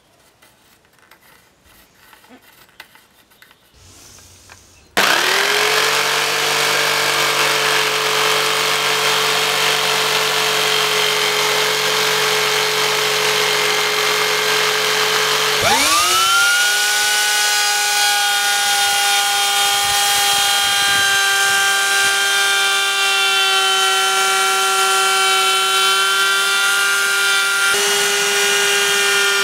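After a few faint seconds, a Black & Decker jigsaw starts suddenly and runs steadily, cutting a curve in a wooden plank. About two-thirds of the way in it gives way to an electric router that spins up and then runs steadily, trimming the edge of the cut piece.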